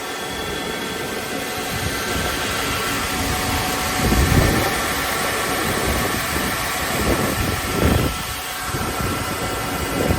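BRUSA di GARBOLI 2LU 75 orbital belt sander running, a steady machine noise with several fixed whines from its belt grinding heads. Two low, heavier surges come about four and eight seconds in.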